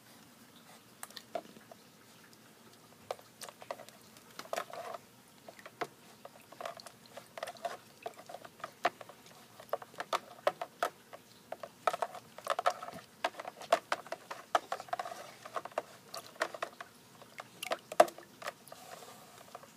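A raccoon playing in a shallow bath of water and ice cubes: irregular sharp clicks, knocks and small splashes, getting busier a few seconds in, with one louder knock near the end.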